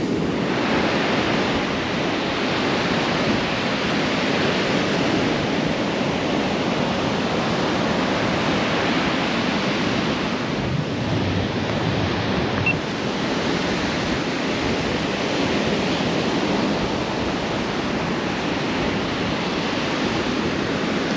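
Heavy surf breaking and washing up the beach in a steady, loud rush, with strong wind buffeting the microphone.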